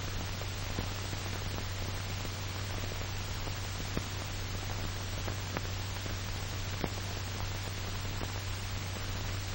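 Steady hiss and low hum of an old film soundtrack, with a few faint, scattered clicks.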